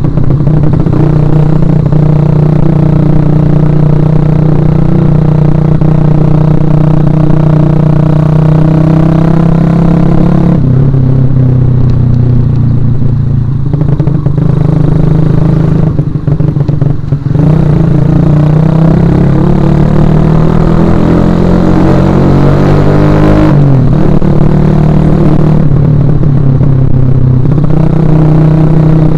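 Suzuki Shogun Axelo R motorcycle engine running under way, steady at first, then easing off and picking up again, with the revs climbing for several seconds and dropping sharply near the end of the climb before settling back to a steady note.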